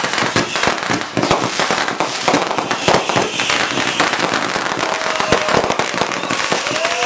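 Fireworks going off in a dense barrage: rapid, irregular crackling and popping with many overlapping bangs.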